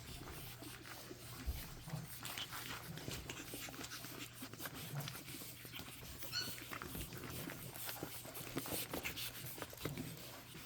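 Five-week-old pug puppies playing: scattered small scuffles and clicks of paws and a toy, with a brief high squeak about six seconds in.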